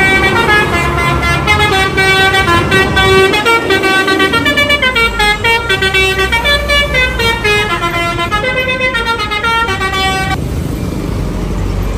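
A bus's Basuri telolet horn, a multi-tone musical horn, playing a quick stepping melody for about ten seconds and then cutting off, leaving a low rumble.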